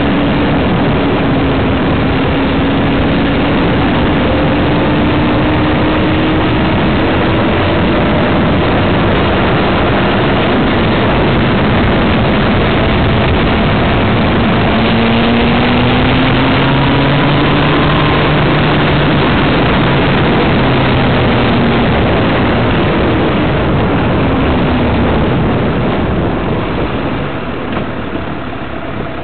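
A road vehicle being driven, heard from on board: a loud, steady rush of road and wind noise with the engine's hum rising and falling in pitch a few times. The noise eases off near the end as the vehicle slows for a red light.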